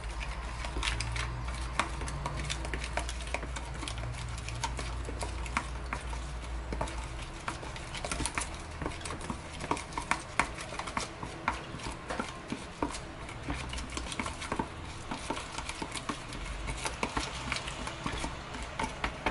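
Raw chicken pieces being mixed by hand into a wet spice paste in a plastic tub on a wooden cutting board, an irregular run of small clicks and knocks that grows busier about halfway through.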